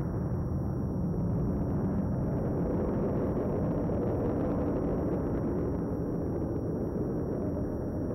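Soundtrack rumble effect: a steady, low rumble of noise with no clear pitch, like a rocket or spacecraft engine.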